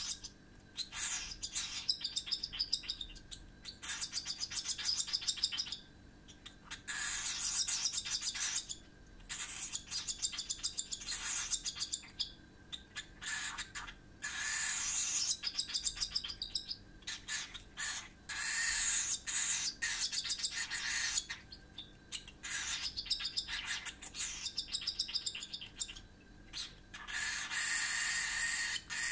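Cockatiel chick food-begging while being hand-fed baby cereal: rapid, high-pitched, raspy chirping in bursts of one to three seconds with short pauses between them.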